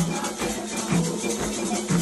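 Music with a low drum struck about once a second and a shaker rattling steadily over it.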